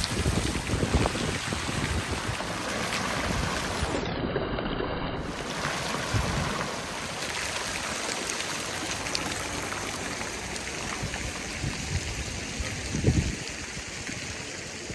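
Water splashing from a fountain into its basin, with strong wind gusts buffeting the microphone as a low rumble.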